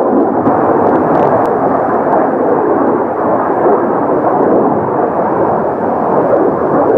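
Loud, steady roar of Kawasaki T-4 jet trainers' twin turbofan engines on a pass overhead.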